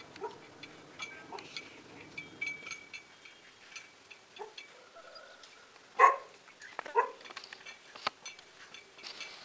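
A dog barking a few times, in short sharp barks, the two loudest about six and seven seconds in.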